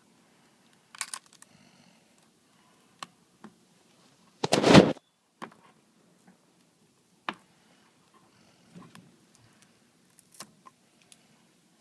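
Scattered small clicks and taps of a pry bar and credit card working the adhesive-held front glass off an iPad 2, with one loud burst of noise about half a second long a little before the middle.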